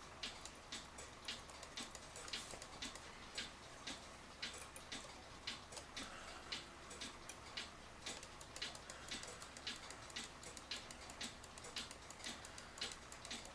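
Citizen battery cuckoo clock ticking faintly and steadily, with a tick-tock a bit over twice a second. The pendulum is swinging and the clock is running as it is supposed to.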